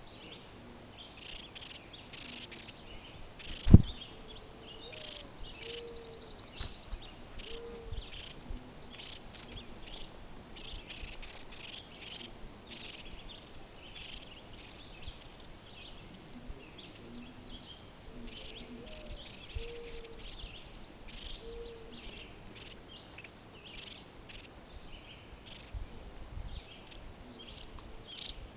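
Evening insects, likely crickets, chirping in a continuous high pulsing chorus. A low bird call sounds in two short series, one about five seconds in and one about twenty seconds in, and a single sharp knock comes about four seconds in.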